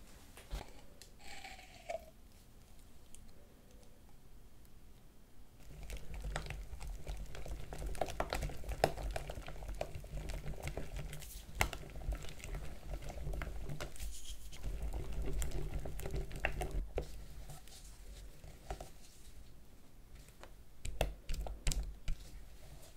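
Light clicks and taps of kitchen utensils against a bowl during cake preparation. A low steady hum joins about five seconds in and fades out near the end.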